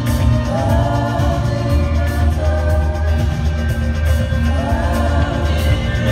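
Live band music with a man singing, heard from the audience of a large concert hall: drums and bass steady underneath, with sung phrases rising above them twice.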